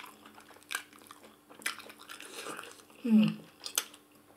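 Close-up eating sounds: wet lip smacks, sucking and chewing of slimy ogbono soup and fufu eaten by hand, in sharp clicks, with a short murmured "mm" about three seconds in.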